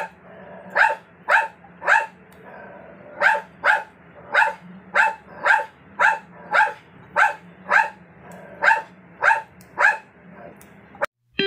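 A dog barking over and over, about two barks a second in short runs with brief pauses, stopping about ten seconds in.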